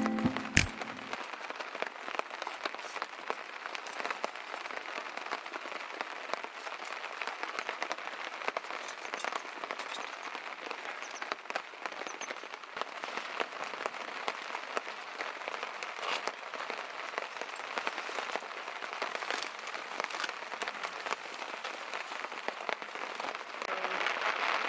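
Steady cold rain, with many separate drops ticking on a surface close by.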